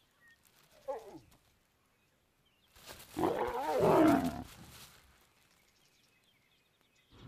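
Lions snarling: a short low growl about a second in, then a loud, harsh snarl lasting about two seconds as a lioness rebuffs a male lion approaching her.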